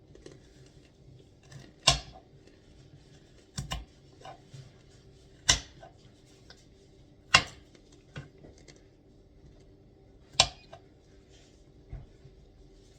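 Knife chopping carrots on a cutting board: single sharp chops every second or two, about seven in all, irregularly spaced, over a faint steady hum.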